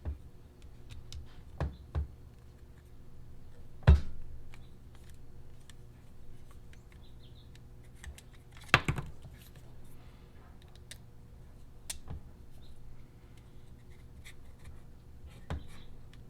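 Plastic RC truck kit parts and small hardware being handled and fitted together: scattered light clicks and knocks, with two louder knocks about four and nine seconds in, over a faint steady hum.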